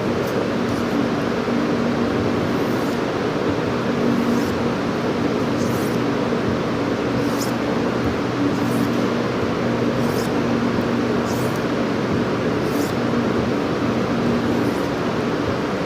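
Knife edge being stroked back and forth across a 1000-grit diamond sharpening stone wet with soapy water, giving a continuous rasping scrape with a steady hum under it, and a light stroke-end accent about every second or so.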